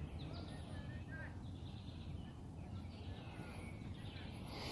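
Outdoor riverside ambience: a steady low rumble with scattered faint bird chirps.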